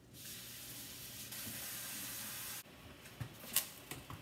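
Kitchen tap running cold water over just-blanched cauliflower rice in a mesh strainer to shock it, then shut off abruptly. A few sharp clinks and knocks follow, one much louder than the rest, as the pot and strainer are handled.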